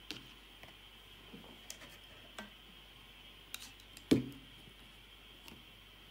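Light clicks and knocks from a metal-cased power supply unit being handled, with one louder knock about four seconds in as it is set down on the work mat.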